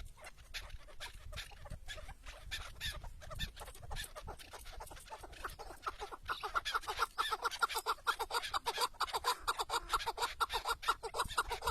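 Chukar partridge calling: a long run of rapid, repeated clucking notes, quieter at first and growing louder about halfway through.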